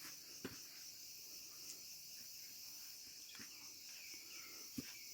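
Faint, steady high-pitched chirring of insects, with a couple of soft knocks about half a second in and near the end.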